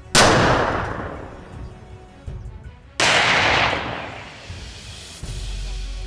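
Two loud weapon blasts about three seconds apart, each followed by a long rolling echo that fades over about a second, with music underneath.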